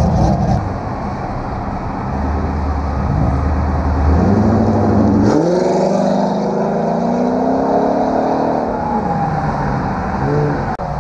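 A C4 Chevrolet Corvette's V8 engine driving away under hard acceleration. After a low steady rumble, the engine note jumps up about five seconds in, climbs for about three seconds, then drops away.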